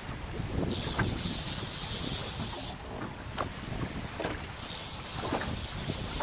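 Wind buffeting the microphone, with small waves slapping and lapping against a boat. A higher hiss comes in about a second in, drops out for a couple of seconds, then returns near the end.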